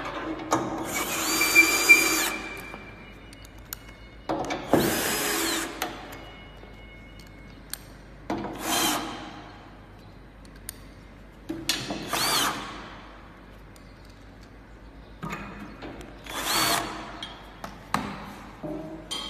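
Power driver tightening bolts into a curved treadmill's frame, in five short bursts a few seconds apart, each with a whine that rises and falls.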